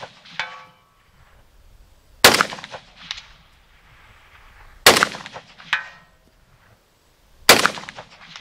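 Three single rifle shots from a PSA AK-104 firing 7.62×39mm, about two and a half seconds apart. Each is followed under a second later by a much fainter metallic ring, typical of a bullet striking a steel target downrange.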